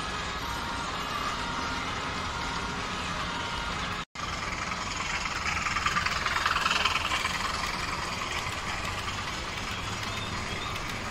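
Model train running along the layout track, a steady rumble of wheels and motor that grows louder as it passes close about six to seven seconds in, then eases off. The sound cuts out briefly about four seconds in.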